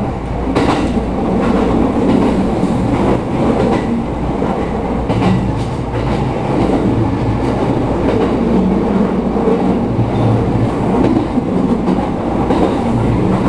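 Inside an E231-series electric commuter train running at speed: a steady, loud rumble of wheels and motors, with a few sharp clicks of the wheels over rail joints.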